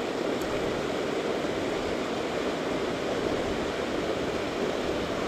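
Steady rush of water pouring over a dam, an even roar that holds at a constant level.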